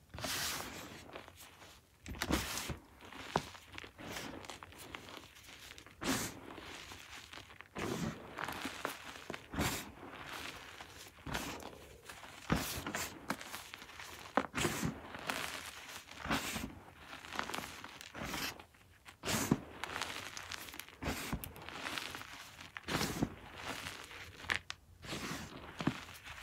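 Blocks of gym chalk crushed and crumbled between bare hands over a heap of chalk powder: irregular dry crunches, about one or two a second, with a soft crumbling hiss between them.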